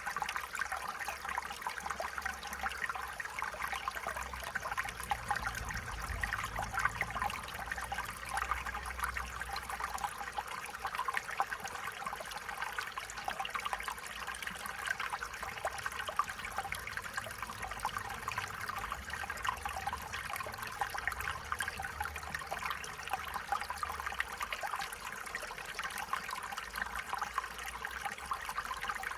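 Stream water running and trickling steadily. A faint low rumble comes and goes underneath.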